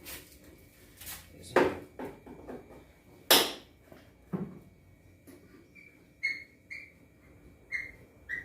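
Hand tools knocking and clattering against a washing machine's cabinet while the screws on its underside are being removed, with two louder knocks in the first half. Several short, high squeaks follow near the end.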